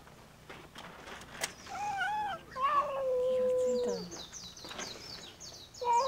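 Cats meowing: a short wavering meow about two seconds in, then a long drawn-out meow that starts high and settles lower, and another short meow near the end. Faint high, rapid bird chirps run through the second half.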